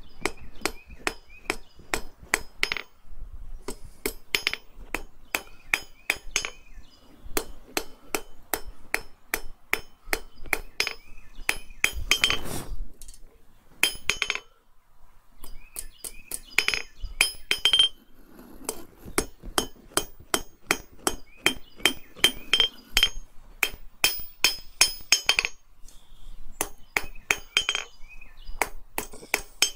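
Blacksmith's hand hammer striking a red-hot bar on an anvil at about three blows a second, each blow with a bright ringing clink, as a leg end is drawn out. The hammering stops briefly about halfway through and again near the end.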